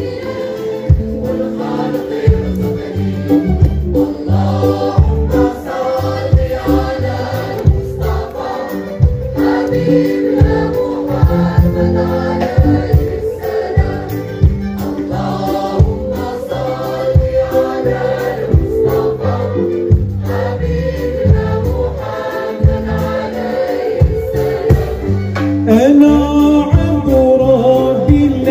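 Live performance of a Moroccan devotional song in praise of the Prophet: a string orchestra with keyboards plays over a steady beat while a choir sings. Near the end a solo voice comes in with sliding notes.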